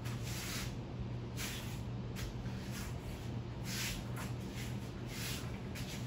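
Harbor Breeze Pawtucket ceiling fan running, a steady low hum with a soft hiss that swells and fades every second or two.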